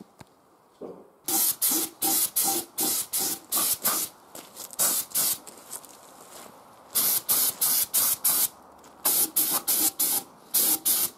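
Paint being sprayed onto metal trailer parts in quick short bursts of hiss, about three a second, in three runs with short pauses between.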